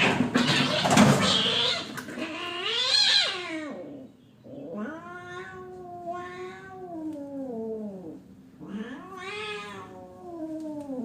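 Cats fighting: harsh hissing and spitting for the first couple of seconds, then three long, wavering yowls that rise and fall in pitch, the middle one the longest.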